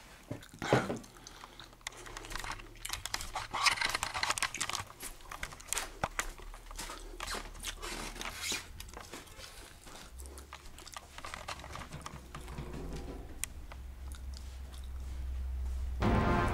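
Handling noise on a handheld camcorder: rustling and scraping with many irregular clicks and knocks, and a low steady hum setting in about two-thirds of the way through. Music starts right at the end.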